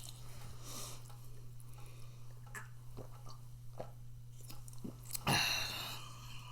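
A person chewing food close to the microphone, with small wet mouth clicks and a louder, noisier chew a little after five seconds in.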